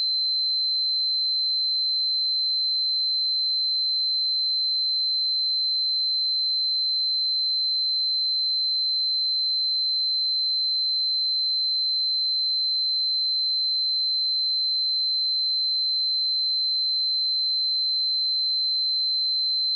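A pure 4086 Hz sine-wave test tone, one steady high-pitched pitch held at a constant level throughout.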